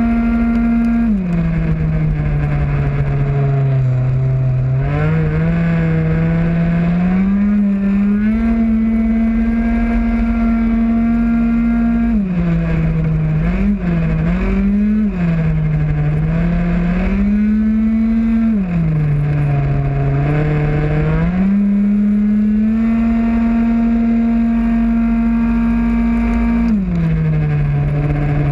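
A 50cc two-stroke racing scooter engine at full throttle, heard onboard: it holds a steady high pitch down the straights, and four times the pitch drops sharply as the rider eases off for a corner, then climbs back as he accelerates out.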